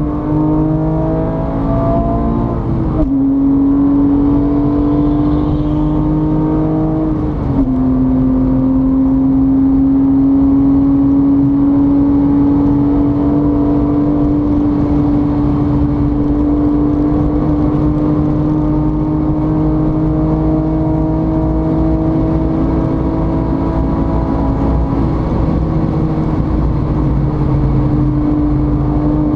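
A vehicle engine pulling under power, its pitch climbing and then dropping sharply twice, about three and seven seconds in, like gear changes, before running on at a steady, slowly rising pitch.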